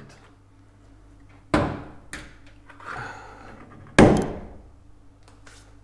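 Two loud thunks about two and a half seconds apart, each dying away quickly, with a softer scraping rustle between them.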